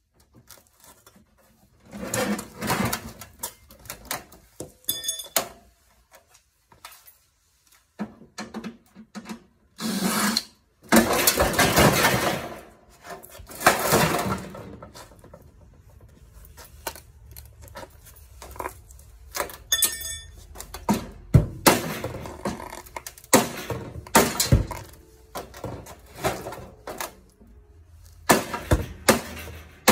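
Metal parts and hand tools clanking, knocking and scraping while a washing machine is stripped for scrap, with a couple of brief metallic rings, one about five seconds in and one about twenty seconds in.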